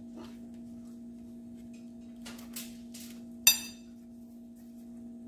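Soft handling sounds of a flour tortilla being folded around shredded pork filling, with one sharp clink about three and a half seconds in, over a steady low hum.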